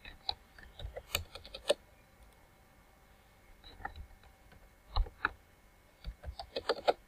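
Computer keyboard keystrokes and mouse clicks in short clusters, several quick taps at a time, as drawing-software commands are typed and cancelled.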